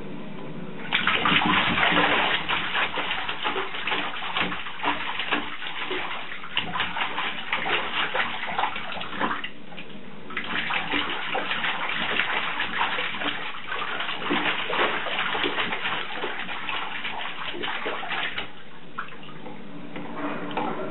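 A baby kicking and splashing in shallow bathwater: a busy run of sloshing and small splashes that starts about a second in, stops briefly around the middle, picks up again and eases off near the end.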